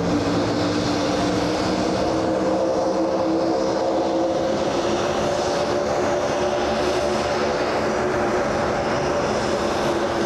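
Gulfstream G150 business jet on final approach, its twin turbofan engines giving a steady drone: several held humming tones under a rushing hiss.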